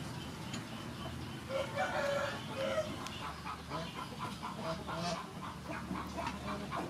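A rooster crows about a second and a half in, followed by chickens clucking in a quick, even series of short calls.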